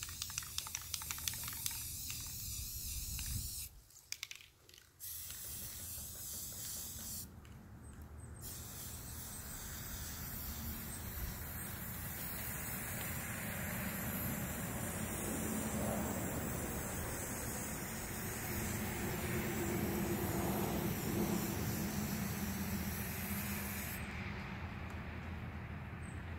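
Aerosol spray paint can hissing in long passes, with a quick run of clicks at the start and a short break about four seconds in.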